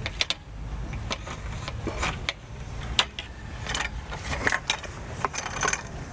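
Irregular clicks, clinks and knocks of camping gear being handled during camp setup, over a low steady rumble.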